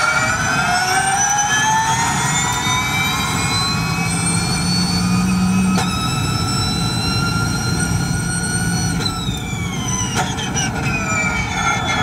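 Audi Sport ABT Schaeffler Gen1 Formula E car's electric drivetrain whining, heard onboard: the whine climbs in pitch as the car accelerates down the straight, holds high, then falls from about nine seconds in as it slows for a corner, over a steady rush of tyre and road noise.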